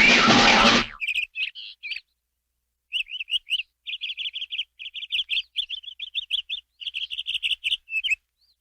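A loud, noisy sound effect cuts off about a second in. Then comes a fast run of high bird-like chirps, about five or six a second, with a short break near two seconds in.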